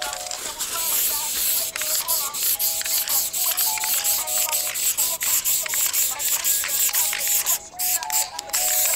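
Aerosol spray-paint can hissing as black paint is sprayed onto a wall, in a run of short bursts with a couple of brief pauses near the end.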